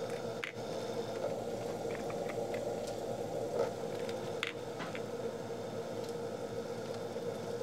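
Steady lab room hum, with a few faint clicks as a gloved hand handles small plastic sample tubes in a rack.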